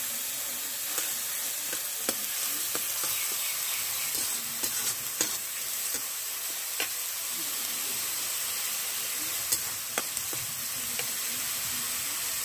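Onion and ginger-garlic paste sizzling steadily in hot mustard oil in a kadai, stirred with a metal slotted spatula that scrapes and clicks against the pan now and then.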